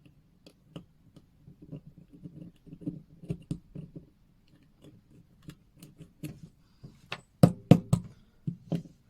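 Small hand tools clicking and tapping irregularly against a watch case as it is worked on, with three sharper clicks a little before the end.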